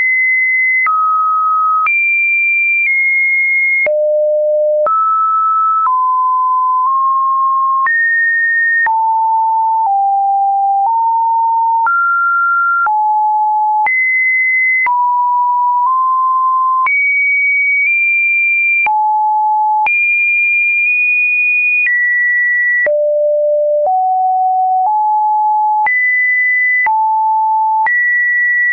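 Computer-generated sine-wave test tones of a Webdriver Torso video: a loud, pure beep about every second, each jumping to a new pitch anywhere from low to high, with a faint click at each change.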